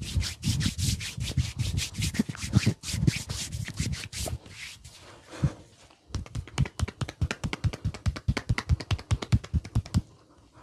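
Head massage: hands rubbing briskly back and forth through the hair and over the scalp in fast strokes. About six seconds in this gives way to a rapid run of sharp pats on the head, roughly eight to ten a second, which stops abruptly near the end.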